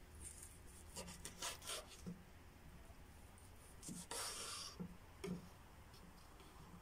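Chef's knife cutting through baked eggplant on a wooden cutting board: a few light taps and scrapes about a second in, then a longer scrape about four seconds in.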